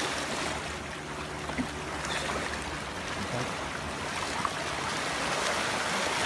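Shallow water sloshing and splashing over shore rocks around a stranded Risso's dolphin as it thrashes in the shallows, with a couple of brief sharper splashes.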